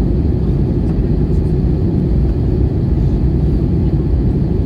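Steady low rumble of an airliner in flight heard from inside the passenger cabin: engine and airflow noise, even and unbroken.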